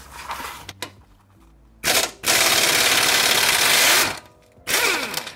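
Cordless impact wrench hammering on a stubborn bumper mounting bolt in three bursts: a short one about two seconds in, a long one of nearly two seconds, and a short one near the end.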